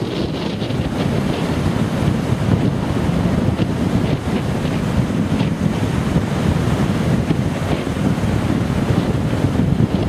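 Storm surf breaking and churning, with strong wind buffeting the microphone in a steady low rush.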